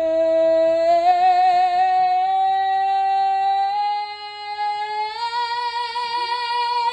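A woman singing one long held note of a Broadway ballad, steady at first, then stepping up in pitch about five seconds in and carrying on with a wavering vibrato.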